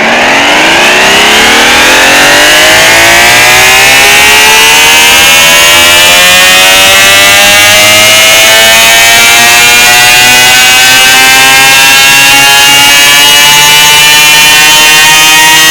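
An emergency alert alarm siren winding up: a loud, rich siren tone rising in pitch, fast at first and then ever more slowly, until it is held almost steady near the end.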